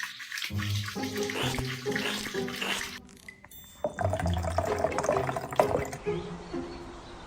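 Running water from a tap splashing, with background music playing over it; the sound cuts out abruptly about three seconds in and picks up again a second later.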